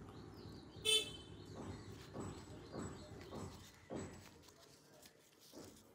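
Close-miked chewing of roti and scrambled egg, soft strokes about twice a second. A short, loud toot about a second in, the loudest sound.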